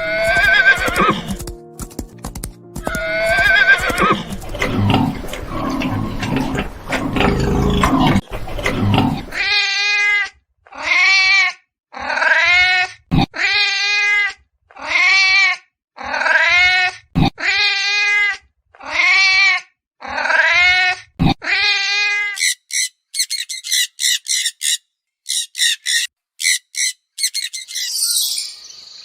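A run of animal calls, one kind after another. First come a couple of long pitched calls over a noisy stretch, then a string of about a dozen separate calls of about a second each at a steady pace, then quick high chirps near the end.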